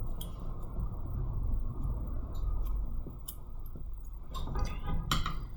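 A few small, sharp clicks and taps of metal hand tools, spaced irregularly, over a steady low hum of bench equipment.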